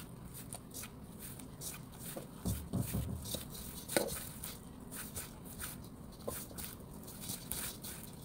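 Hands mixing egg into flour in a stainless steel bowl: irregular soft squishing and rustling, with a few dull knocks about two and a half to four seconds in.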